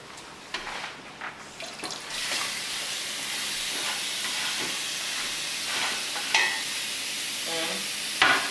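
Diced sausage tipped into a pot of ground beef, onions and garlic: a few short knocks at first, then steady sizzling from about two seconds in, broken by a few sharper knocks of stirring.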